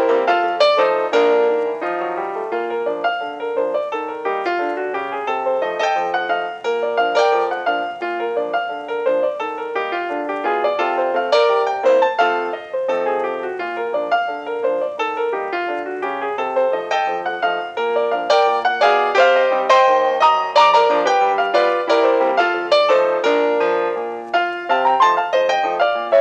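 Background music: solo piano playing a busy tune of many quick notes.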